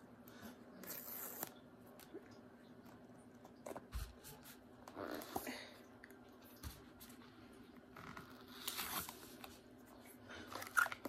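An iPhone 14's cardboard box being opened and handled: several short tearing and rustling sounds as the lid is worked off the base, over a low steady hum.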